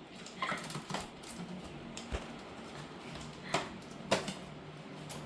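Scattered light clicks and knocks of refrigerator parts being handled and fitted during a repair, five or so in all, over a faint steady low hum.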